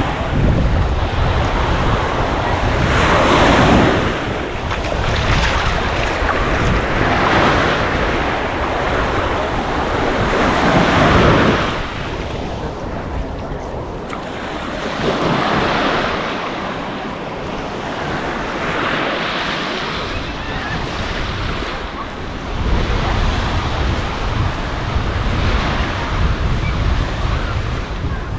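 Waves washing onto the shore, swelling and fading every few seconds, with wind buffeting the microphone.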